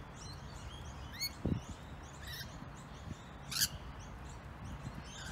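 Rainbow lorikeets chattering: many short, sharp chirps, with one louder harsh screech about three and a half seconds in. A low thump about a second and a half in.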